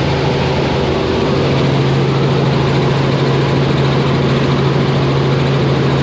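Helicopter in cruising flight heard from inside the cabin: a loud, steady noise with a constant low hum that grows stronger about a second in.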